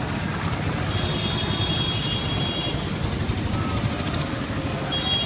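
Street traffic with a vehicle engine running, a continuous low rumble. A high steady tone sounds twice, about a second in and again near the end, each time for under two seconds.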